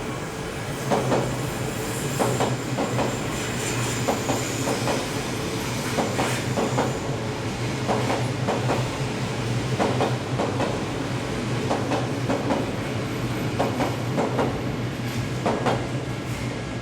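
Odakyu 1000 series electric train running past at low speed, its wheels clacking irregularly over rail joints over a steady low hum.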